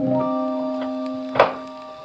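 Background music of held keyboard notes, with a single sharp knock about one and a half seconds in.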